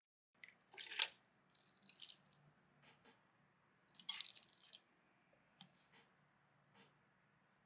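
Soft, wet squishing and light knocks of food being handled and mixed, in a few short bursts with faint clicks between.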